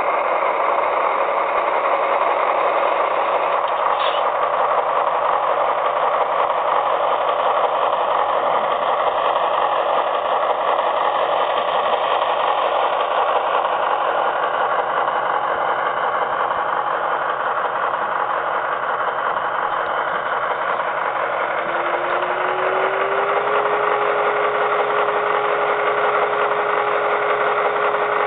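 Simulated diesel engine sound played from the onboard speaker of a Broadway Limited Blue Line HO-scale GE AC6000 model locomotive, running steadily. Past two-thirds of the way through, a tone rises slightly and then holds steady.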